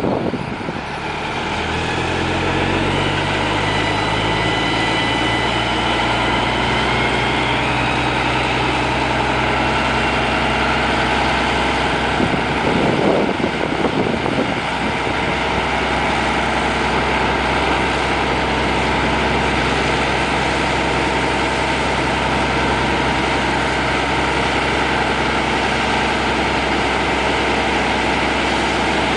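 Heavy engine of a mobile wood chipper on a forestry-machine chassis revving up over the first few seconds, then running steadily at high speed. There is a brief rougher surge about halfway through.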